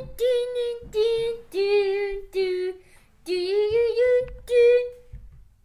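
A high voice singing a short, unaccompanied tune of about six held notes, stopping about five seconds in.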